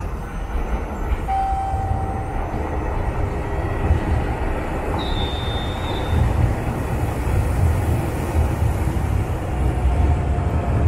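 JR Shikoku 8000 series train at a station: a steady low rumble, a short whine about a second in, a brief high squeal around five seconds in, and a faint slowly falling whine near the end.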